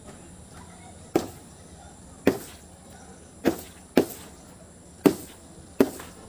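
Six sharp cracking impacts at uneven intervals, each dying away quickly, over a steady background hiss: objects being smashed or crushed one after another.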